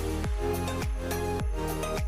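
Background music with a steady, deep beat landing about every 0.6 s under held notes.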